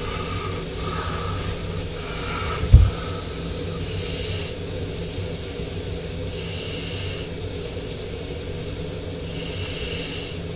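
A steady low hum, with soft hissing every few seconds and a single thump about three seconds in.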